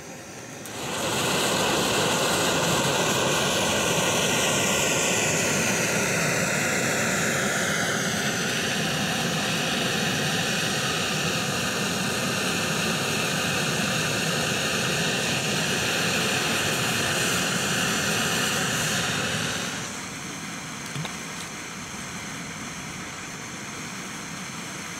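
Portable gas canister camp stove burner running at full flame, a loud steady hiss. About 20 s in it drops to a quieter hiss.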